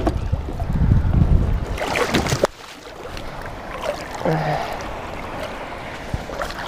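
Water splashing and sloshing as a hooked wels catfish is drawn alongside a float tube and gripped by the jaw. Wind rumbles on the microphone for the first two and a half seconds, then cuts off suddenly, leaving quieter splashing.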